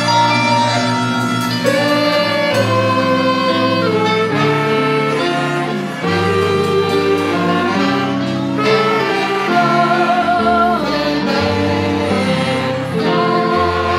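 Live band playing loud dance music: drum kit, electric guitar and bass under a sustained melody line of held, wavering notes.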